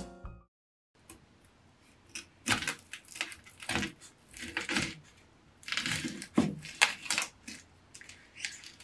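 Chef's knife cutting through a new onion on a wooden cutting board: a series of separate crisp slicing strokes through the onion and its dry skin, starting about two seconds in.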